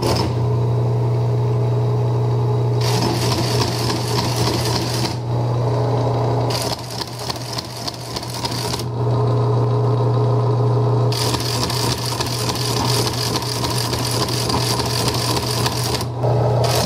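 Teletype Model 15 printer switched on and running loudly: its synchronous motor hums steadily. Over the hum the typing mechanism clatters in several stretches of rapid printing, with pauses where only the motor runs.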